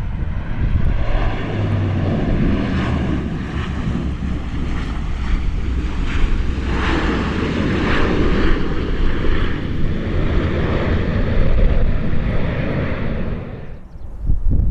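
Airliner engines on a landing approach, heard with heavy wind buffeting the microphone; the engine noise swells through the middle and cuts off suddenly near the end.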